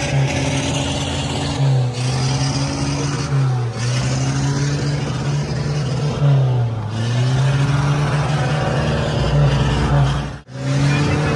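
A car engine running at high revs, its pitch dipping and climbing back several times.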